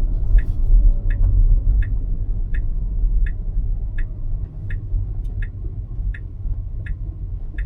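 Tesla turn-signal indicator ticking steadily, about one tick every 0.7 seconds, signalling a left turn into the destination, over a low cabin rumble.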